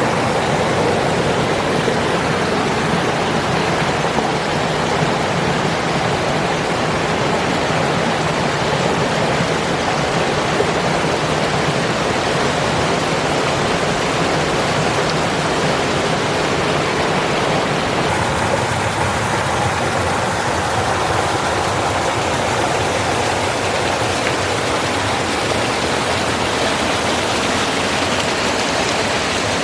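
Cascading waterfall rushing steadily, running high after recent rain. Its tone shifts slightly about two-thirds of the way through.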